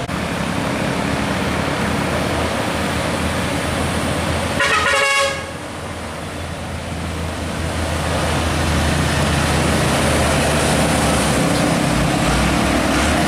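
Road traffic running past, with a short vehicle horn blast just before five seconds in. After that a container tractor truck's diesel engine pulls under load, growing louder as the truck nears.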